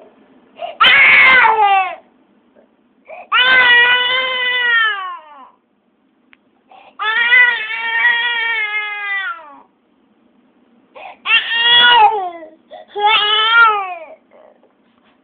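Young child crying: five long wails with short pauses between them, each sliding down in pitch as it ends.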